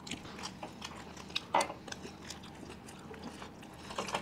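People chewing pizza close to the microphone: soft wet chewing and mouth clicks, the sharpest about a second and a half in and near the end.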